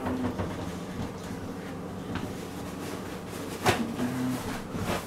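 Kitchen clean-up at the sink and counter: a sharp knock about two-thirds of the way through and a lighter one near the end, over a steady low hum.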